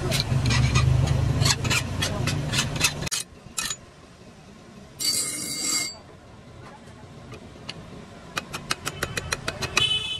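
Blacksmith's workshop sounds in short cuts. First a steady low motor hum with quick light metal taps. Then about a second of steel being ground against a grinding wheel, followed near the end by a rapid run of light hammer taps that ends in a brief metallic ring.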